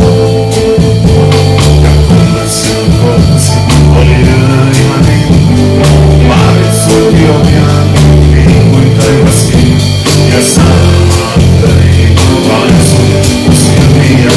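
Live rock band playing loud, with heavy bass, a drum kit with cymbal crashes, keyboard and a man singing.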